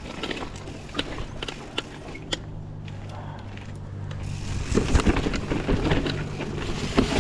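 Skis scraping and chattering over hard-packed snow on a steep mogul run, with scattered sharp clicks of the edges. It gets louder and rougher about halfway through. A faint steady low hum sits under the first half.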